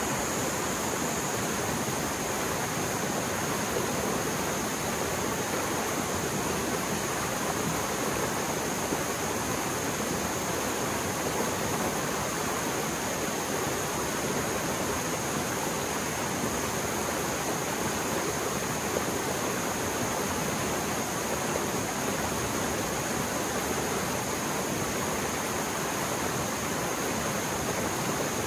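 Mountain stream swollen after heavy rain, fast-flowing water in a steady, unbroken roar.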